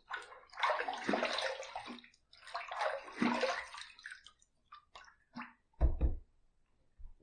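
Water splashing in two long bursts as shaving lather is rinsed off after the first pass, followed by a few light knocks.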